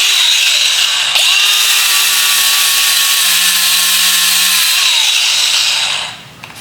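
TEENO 3-inch battery-powered flap-disc grinder running at full speed with a steady high-pitched whine. It cuts out briefly about a second in, starts again, then spins down near the end.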